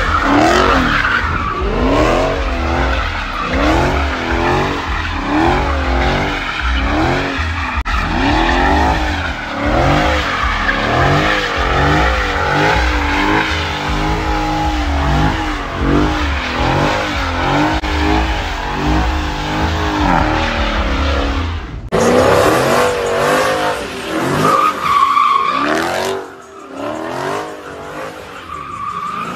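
Dodge Challenger SRT's V8 revving up and down over and over, with tyre squeal, as the car spins donuts and burns out its rear tyres. The sound breaks off suddenly about three-quarters of the way through, then the revving and squealing go on.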